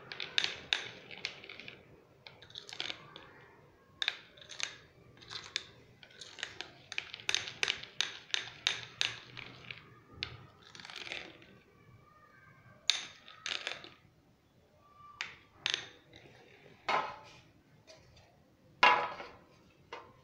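Spoon clicking and scraping against a small bowl in quick repeated strokes as cocoa powder is stirred into cake batter. After about ten seconds the strokes thin out into a few separate knocks, the loudest near the end.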